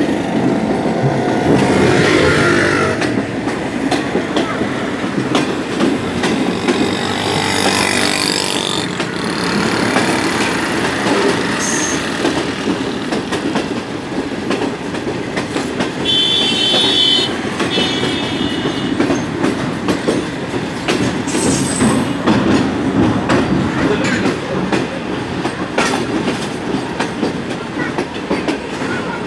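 Train running along the track, heard from on board: a steady rumble with the wheels clacking over rail joints. A brief high-pitched squeal comes about sixteen seconds in.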